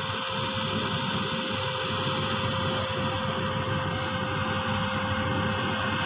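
Bimo rice combine harvester running while it harvests: a steady machine drone with one constant whine.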